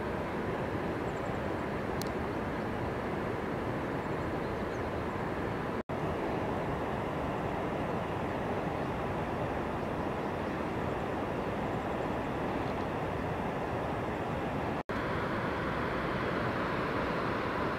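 Steady outdoor background rumble and hiss with no distinct events, cutting out abruptly for a split second twice, about six and fifteen seconds in.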